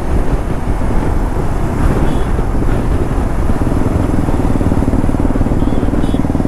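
Motorcycle engines running at cruising speed, heard from a moving bike riding among a group of motorcycles. About three and a half seconds in, a steady engine drone grows louder.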